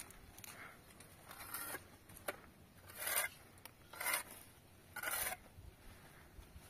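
Four short scraping strokes about a second apart, with a few light clicks between them.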